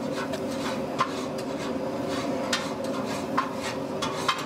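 A knife cutting through goat liver on a wooden chopping board, with a few sharp knocks of the blade against the board, over a steady background hum.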